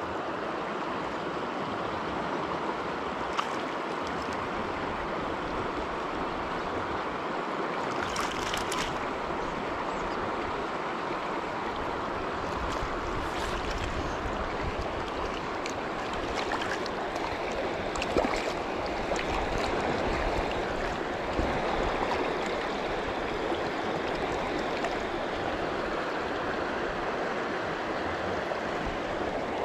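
River current rushing steadily over rocks and around the wading angler, with a few brief sharp sounds here and there.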